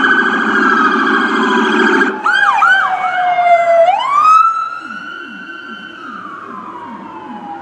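Police car sirens: a rapid warbling siren over a low buzzing tone, then a few quick rising-and-falling yelps, then a long wail that rises and slowly falls, quieter in its last few seconds.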